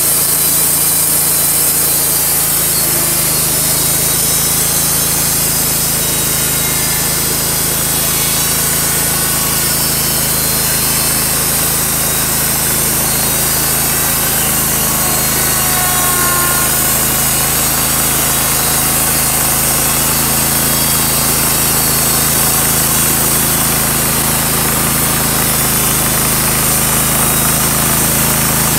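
Wood-Mizer LT35 hydraulic band sawmill sawing through a walnut log: its engine runs steadily as the band blade cuts along the log.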